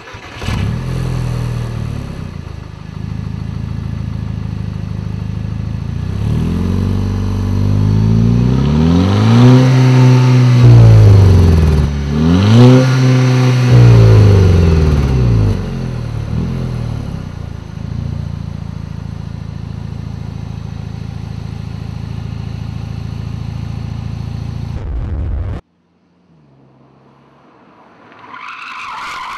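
VW Scirocco 2.0 TSI turbocharged four-cylinder starting and idling at the tailpipes, then revved twice, each rev climbing and falling back to idle, before settling to idle again. It cuts off suddenly a few seconds before the end, after which the car is heard faintly, growing louder as it approaches on the track.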